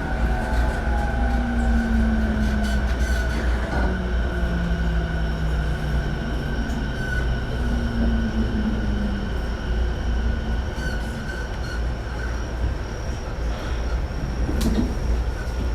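209 series 500 subseries electric train running, heard from inside a motor car: traction motor and inverter tones gliding down in pitch as the train slows, over steady wheel-on-rail rumble.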